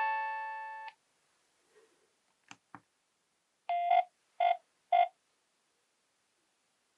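Nokia 7210 polyphonic ringtone ending on a last chord that dies away within the first second. Then two faint clicks, and three short electronic beeps on one pitch, the first a little longer than the other two.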